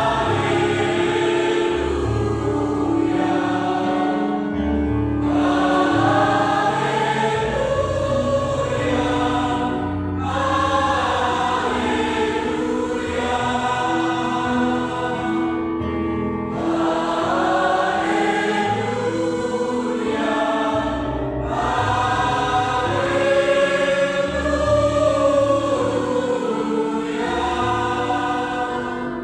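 A choir of school teachers and staff singing a sacred song continuously in several voices, with low sustained accompaniment notes underneath.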